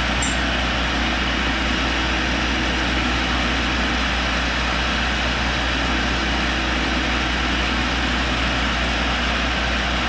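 Tool and cutter grinder running steadily with a low hum and an even hiss, its wheel spinning but not yet in contact with the end mill.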